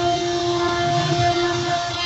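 CNC router spindle running with a steady whine as its bit carves a pattern into a wooden panel; a lower tone in the whine drops away near the end.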